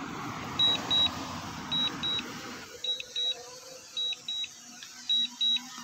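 Drone remote controller beeping during the DJI Mini 4 Pro's automatic return-to-home landing: short high double beeps about once a second. An even hiss underneath drops away about halfway through.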